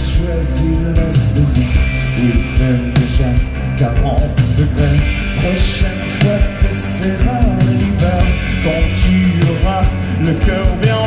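Live rock band playing loudly, with a man singing into a microphone over drums, cymbals and bass, recorded from the audience.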